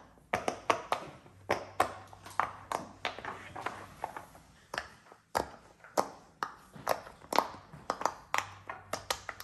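Plastic fidget controller toys being clicked: an irregular run of sharp clicks and taps from their buttons and switches, about three a second.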